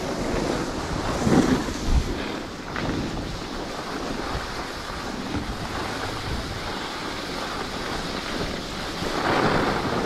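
Wind rushing over the microphone and skis sliding and scraping over snow during a downhill run, a steady surf-like hiss with a brief knock about two seconds in.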